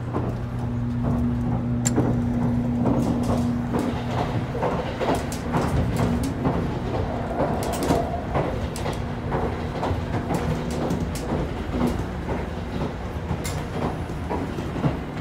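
Running noise inside a moving 783 series electric train: a steady rumble with a low hum, and frequent clicks and rattles from the rail joints and car body. The hum drops out about two-thirds of the way through.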